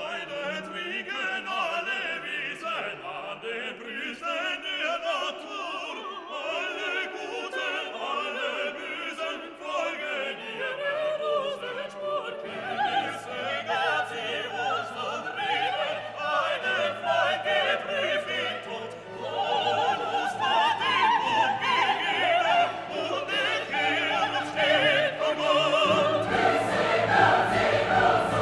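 Background classical music: an orchestra with singers and a choir, growing fuller and louder in the second half.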